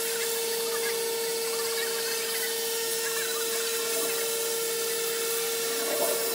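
A handheld corded power sander runs steadily with a constant whine, sanding old bottom paint and filler off a yacht hull.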